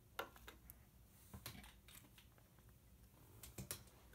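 A few faint taps and light knocks as handmade cardboard action figures are handled and set down on a desk, with a small cluster of taps near the end.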